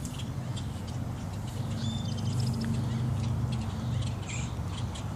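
Crows calling over a low steady hum: a quick run of short calls about two seconds in and a harsh caw near the end, as the flock mobs a heron holding one of them.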